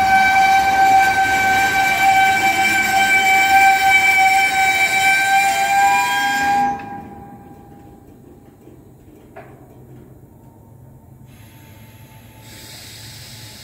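Freight car wheels rolling past with a loud, high-pitched steady squeal that stops abruptly about seven seconds in. After that, a much quieter rolling rumble of the covered hopper cars carries on.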